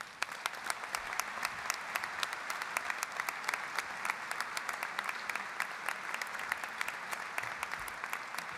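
Large audience applauding in a big hall: the clapping breaks out at once and holds steady and dense.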